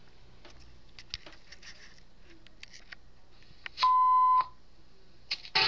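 A single electronic beep, one steady tone lasting just over half a second about four seconds in, after a few faint clicks of handling. Music starts from the speakers right at the end.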